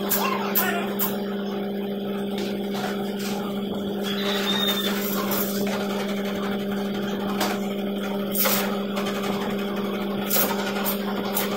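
Electric chicken-cutting machine with a circular disc blade, its motor running with a steady low hum, broken by irregular sharp cracks as pieces of chicken are fed through and chopped.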